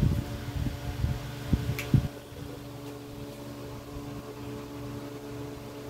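A steady low mechanical hum made of several pitched tones, with a few dull knocks and bumps from handling in the first two seconds.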